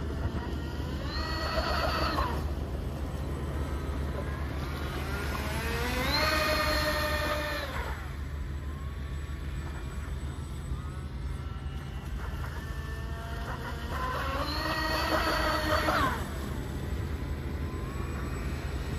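Model boat's twin brushless outrunner motors driving water jets, whining up in pitch, holding and dropping back in three throttle bursts, the middle one the longest. A steady low rumble runs underneath.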